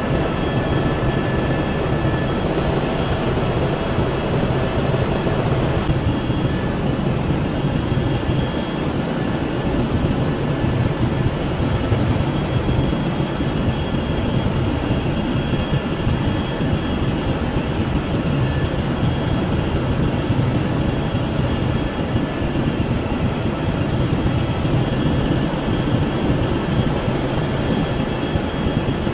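Tour helicopter in cruising flight heard from inside the cabin: a steady engine-and-rotor drone with faint thin whining tones above it.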